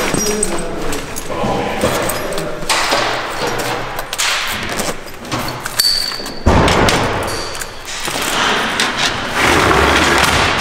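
Heavy firefighter turnout gear being pulled on, with rustling and thumps as the bunker pants and suspenders go on. A low rumble starts about two-thirds of the way through.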